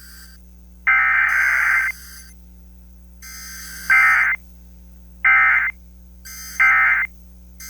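Emergency Alert System SAME data bursts, the modem-like digital tones that carry the coded alert message. About four bursts of half a second to a second each come roughly a second apart, with another starting right at the end.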